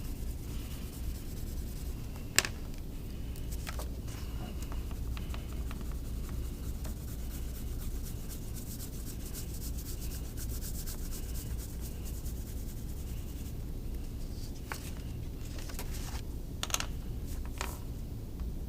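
Wax crayon scribbling rapidly back and forth on paper to colour in a large area: a steady, scratchy rubbing, broken by a few sharp clicks, the loudest about two and a half seconds in.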